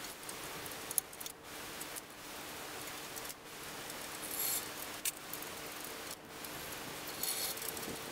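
A few light metallic clinks and some handling noise as fingers work the rear axle nut and chain adjuster of a bicycle wheel hub, over a steady background hiss.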